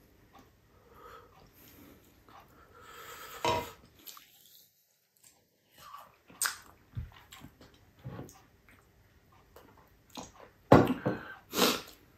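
Close-miked eating sounds: a man chewing octopus adobo and rice with wet mouth smacks and a sip from a glass. There are a few louder bursts, the loudest near the end, and a brief silent break about four seconds in.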